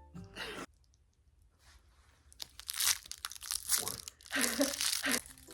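Crinkly plastic snack packaging being torn open and rustled in several bursts over the second half.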